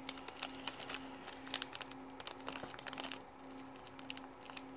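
Faint background music, a low note pulsing about twice a second, under scattered small clicks and taps of plastic model-kit parts being handled.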